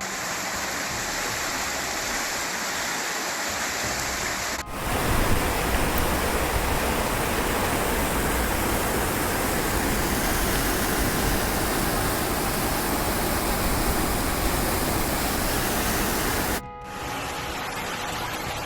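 Steady rushing of running water, such as floodwater, across three shots. It gets louder at a cut about four and a half seconds in and drops back near the end.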